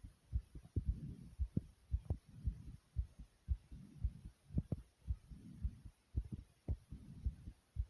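A fast human heartbeat, a quick run of low thumps often in close pairs at two to three a second, with heavy breathing swelling in and out between them.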